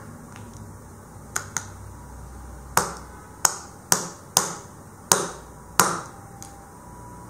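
A smartphone struck down hard on a walnut: two light taps, then six sharp knocks of the phone against the hard shell, each ringing briefly.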